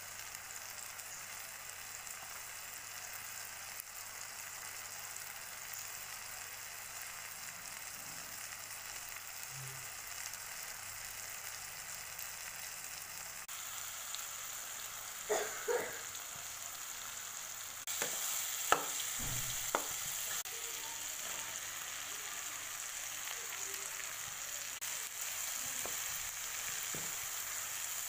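Chopped tomatoes, onions and ground spices sizzling steadily in hot oil in a wok, with a steel spoon knocking and scraping against the pan several times around the middle. The sizzle gets louder about two-thirds of the way through.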